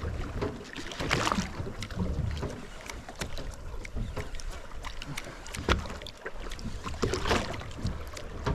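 Wind buffeting the microphone over water moving against a boat, with scattered light clicks and knocks.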